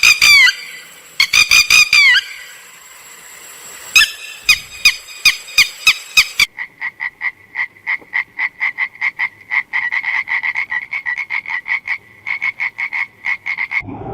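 An animal calling: first clusters of short calls that rise and fall in pitch, then, from about six and a half seconds in, a fast, even train of pulsed calls at one pitch, about five a second.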